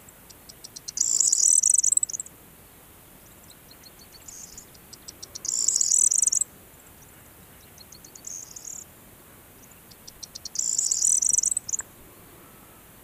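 Corn bunting singing: three songs, each a run of ticks that speeds up and runs into a brief, dense, high-pitched jingle, with a softer, shorter phrase between the second and third.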